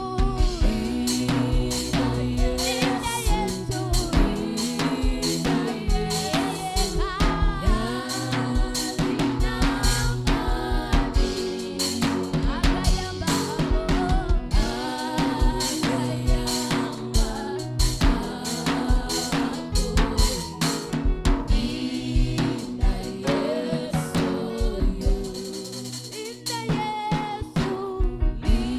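Live gospel worship music: singers over a band with a drum kit keeping a steady beat of snare and bass drum, with bass and keyboard underneath.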